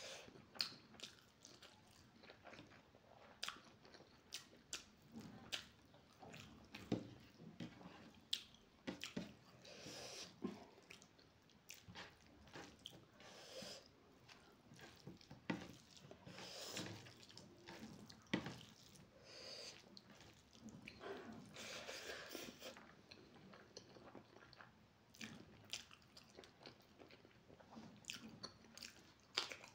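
Close-miked chewing of a mouthful of rice, egg curry and greens eaten by hand: soft wet chewing broken by many irregular short clicks.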